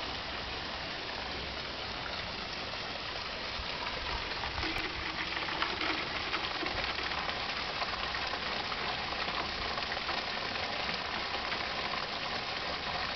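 Steady rain falling, a continuous hiss of water that grows a little louder about four seconds in.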